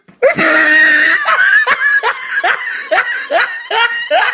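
High-pitched laughter: a drawn-out opening note, then a run of about eight rhythmic laughing pulses, two to three a second, cut off abruptly at the end.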